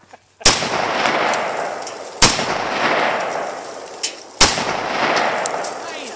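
Three single shots from a CETME G3-pattern .308 rifle, about two seconds apart, each followed by a long rolling echo that fades out.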